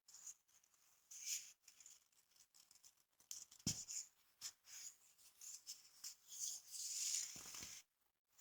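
Compressed baking soda crushed and crumbled in the hand: irregular soft crunching and gritty rustling, with a longer run of crunching near the end.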